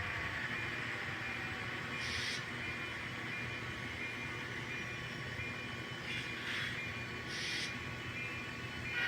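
Model train running on the layout track through a Peco switch, a steady whine with a few short hissy bursts, during a test run after its rail joiners were soldered.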